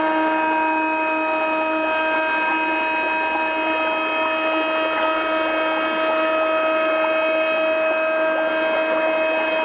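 A steady hum at one fixed pitch with a ladder of overtones, over an even hiss, unchanging throughout.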